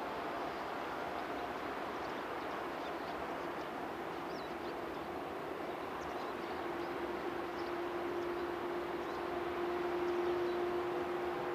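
Distant freight train hauled by an electric locomotive running past, a steady rolling noise; a steady hum joins about halfway through.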